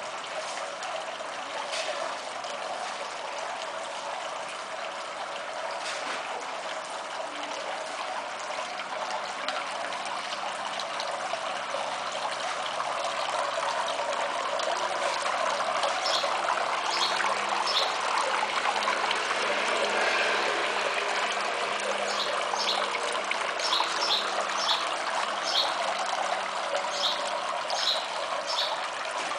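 Water trickling and splashing steadily down the tiers of a small black fossil-marble fountain into its basin, louder through the middle stretch. Short high ticks come and go in the second half.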